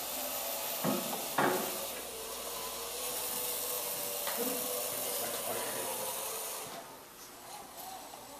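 Small DC motor of a remote-controlled robot cart running, a steady whirring hiss as it drives along, cutting off near the end. Two sharp knocks about a second in.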